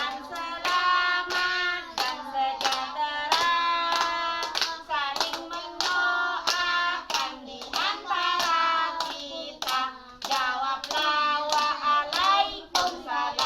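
Children singing a song while clapping their hands along to it, the claps coming repeatedly through the melody.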